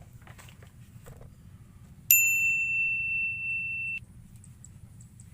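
A single bright bell-like ding, about two seconds in. It holds one clear pitch for about two seconds, then cuts off abruptly.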